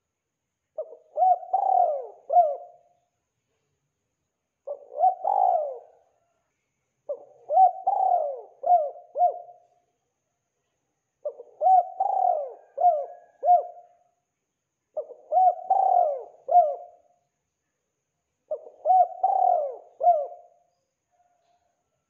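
Spotted dove cooing: six phrases, each a short run of several rising-and-falling coos, one phrase every three to four seconds with silent gaps between.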